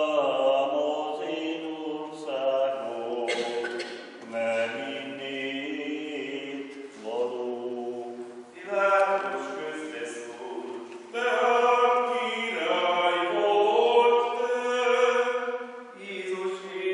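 Unaccompanied male chanting of the Passion in Hungarian, sung in long phrases with held notes and short pauses between them.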